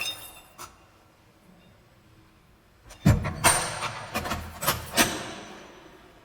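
Heavy steel prison cell door and its lock clanking: a loud clank about three seconds in, followed by several more sharp metal clanks over the next two seconds, ringing out in an echoing corridor.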